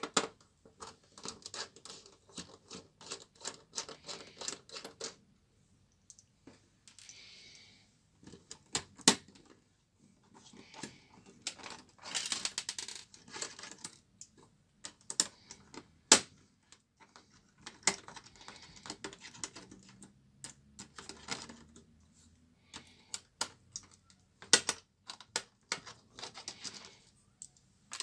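Irregular clicks, taps and light clatter of plastic and metal parts as a Dell Studio 1535 laptop is worked on by hand and with a screwdriver, with a few sharper knocks along the way.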